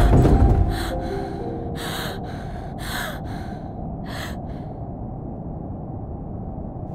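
Heavy crash of a door being broken in, followed by rapid, panicked gasping breaths that stop about four and a half seconds in, over a low rumbling drone.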